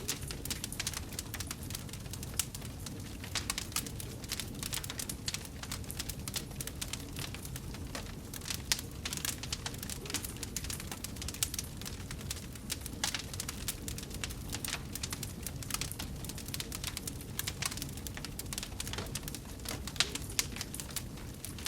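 Wood fire burning in a fireplace, crackling with many small irregular pops over a steady low rumble of the flames.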